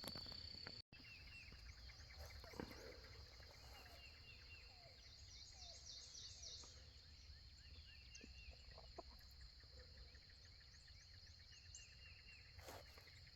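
Faint wetland morning chorus: many small birds chirping and trilling at scattered moments, over a steady high insect drone.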